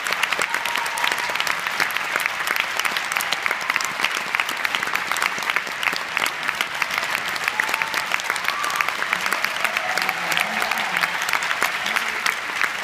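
Theatre audience applauding: dense, continuous clapping that holds a steady level, with a few faint voices in the crowd in the second half.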